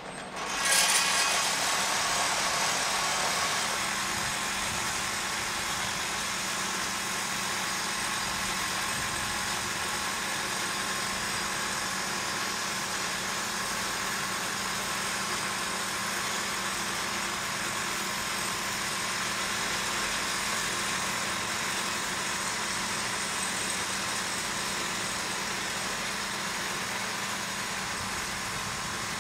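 Bell B30E articulated dump truck's diesel engine running close by. It is a steady machine noise that swells up about a second in and then holds.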